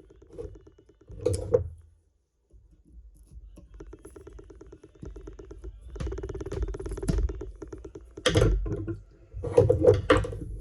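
Metal hand tools clicking and scraping against a rusted steel front spindle while working at a stuck snap ring. Sharp clattering comes about a second in and again in a burst near the end, over a steady low hum.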